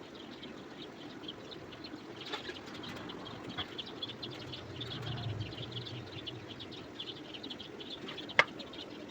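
Small birds chirping in quick, repeated short notes, with a few light clicks and one sharp, loud click near the end.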